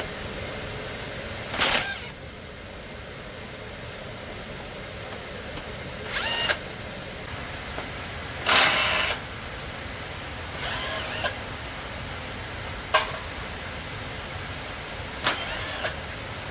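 Six or so brief knocks and scrapes from handling tools or parts, two of them sharp clicks near the end, over a steady background hiss.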